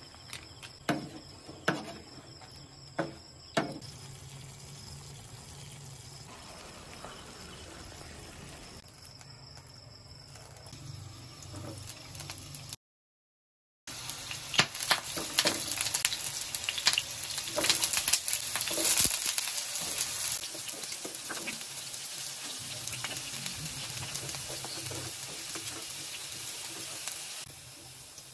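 Potato and carrot chunks frying in hot oil in a nonstick pan: a steady sizzle, much louder from about halfway on, with sharp clicks of metal tongs turning the pieces. The first half holds a quieter hiss with a few sharp clicks, and the sound drops out briefly near the middle.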